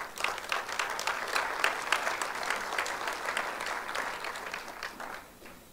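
Audience applauding: dense clapping that fades out about five and a half seconds in.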